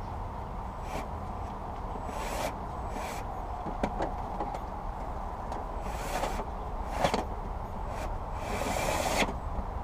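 Scattered clicks and several short scraping rubs as engine-bay parts and hand tools are handled while the battery carrier is being refitted, over a steady low hum.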